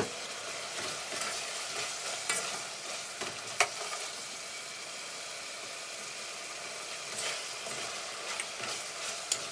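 Tomato sauce sizzling in an aluminium pot while a metal spoon stirs it, knocking against the pot with a few sharp clinks.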